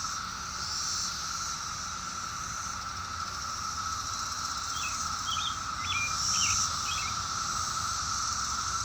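Chorus of 17-year periodical cicadas: a steady, unbroken drone, with a higher hiss that swells now and then.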